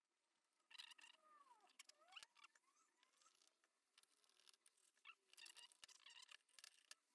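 Faint small clicks, scratches and brief squeaks of a hex driver turning screws into the plastic gearbox of an RC car chassis, with plastic parts being handled.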